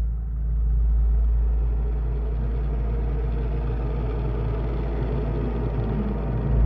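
A steady low rumble with an even hiss over it, without any clear melody: the ambient sound bed under the closing credits.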